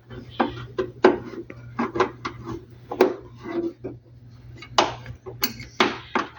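Metal hand tools clinking and knocking irregularly against engine parts as a wrench works the alternator bolts, with a few sharper metal clacks about five seconds in, over a low steady hum.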